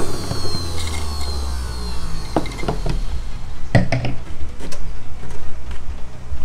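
An electric juicer's motor winding down, its whine falling in pitch and its low hum dying away about three seconds in. It is followed by a few sharp knocks and clicks.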